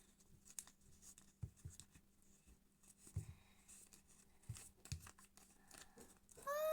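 Faint, scattered clicks and rustles of hands handling a slime and its container. A high-pitched call begins right at the end.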